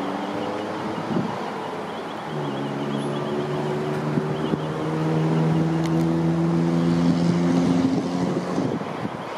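Queensland Rail Electric Tilt Train moving slowly out of the platform, its electrical equipment giving a steady hum of several even tones that swells about two seconds in and fades near the end. Wind noise on the microphone throughout.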